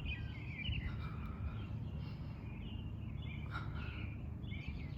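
Small birds chirping and twittering in quick short notes throughout, over a steady low background hum.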